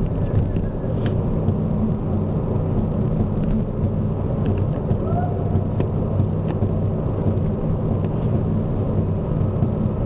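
Car driving along a road, heard from inside the cabin: a steady low engine and tyre rumble, with a few faint ticks.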